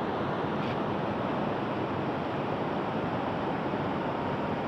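Shallow river rushing steadily over rocks, a constant even wash of water noise.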